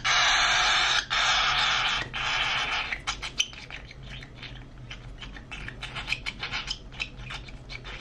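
Baby cockatiel's raspy food-begging call as it is hand-fed. It gives a continuous hiss for about three seconds, then breaks into rapid short raspy chirps, several a second, while it takes the formula.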